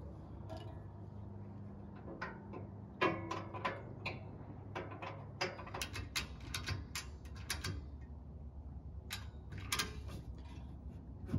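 Irregular clicks, taps and knocks of hands fitting hardware at a propane tank's valve on a steel roof-rack cargo basket, busiest in the middle of the stretch and again near the end, over a faint steady low hum.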